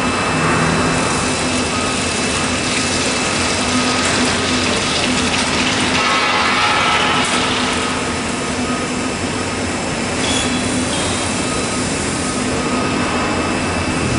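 CNC horizontal boring mill running as it bores and mills metal: a steady machining noise with several constant tones held through, swelling slightly about halfway.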